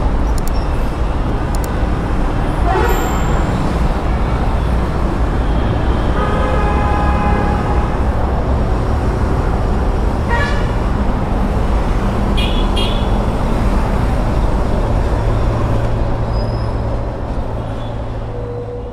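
Road traffic going by with a steady low rumble, and a vehicle horn sounding for about two seconds around six seconds in; the noise fades down near the end.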